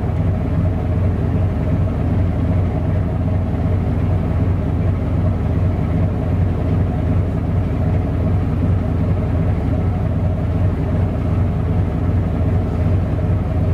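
A ship's diesel engine running steadily: a constant low drone with a strong deep hum.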